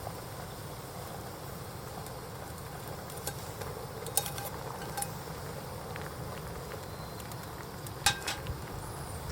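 Steady low rumble of wind on the microphone, with a few light clicks and clinks about four, five and eight seconds in.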